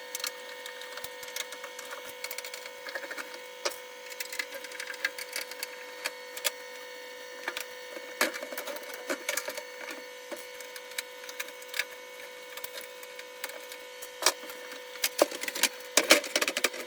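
Irregular clicks, snaps and light clatter of plastic and metal parts being handled while the induction hob's fan assembly is taken apart, coming thicker near the end, over a steady faint hum.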